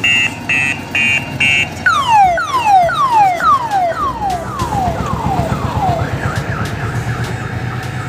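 An odong-odong mini tourist train's loud electronic siren cycling through its tones: a few quick beeps, then a run of falling whoops from about two seconds in, then a fast warble from about six seconds in. Underneath is the low rumble of the train's diesel engine, which grows after about four seconds.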